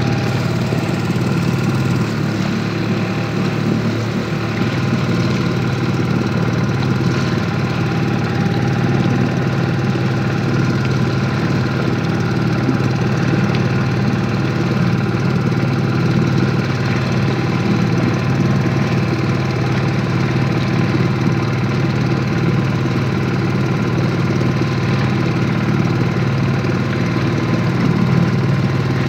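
Outboard motor of a PVC inflatable boat running at a steady speed, its pitch holding even with no revving up or down.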